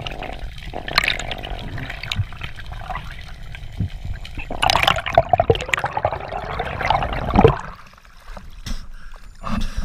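Water noise and bubbling against an underwater action camera as a freediver ascends a dive line, busiest in the seconds before the surface; a little before eight seconds in the camera breaks the surface and the underwater noise cuts off to quieter open-air water sound.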